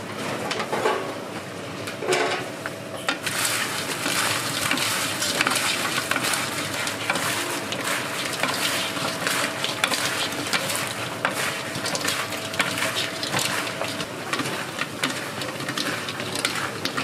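Dak-gangjeong (Korean sweet-and-sour fried chicken) being cooked: dense crackling with scraping and clattering of metal utensils and pans, which thickens about three seconds in and then keeps up steadily over a faint hum.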